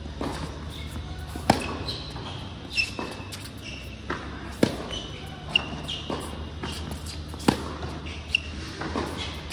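Tennis rally in a large indoor hall: sharp pops of the racket striking the ball and the ball bouncing on the hard court, at irregular spacing roughly once a second, with short high squeaks of tennis shoes on the court surface.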